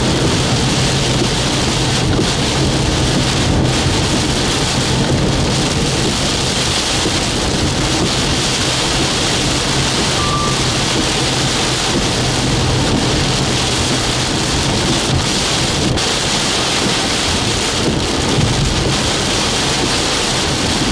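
Heavy rain beating steadily on a vehicle, under a low steady drone from the vehicle that fades about two-thirds of the way through.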